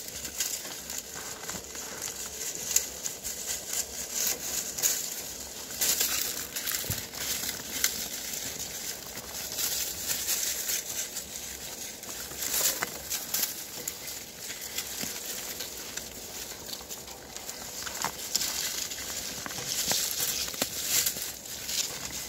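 Red deer stags feeding from a birch broom: rustling of dry birch leaves and crunching of twigs as they tear at it and chew, in uneven crackles.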